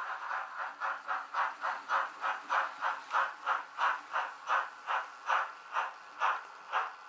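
Digital sound of a Märklin H0 model steam locomotive: an even run of steam chuffs, about three a second at first and slowing to about two a second, the beat slowing as the locomotive slows.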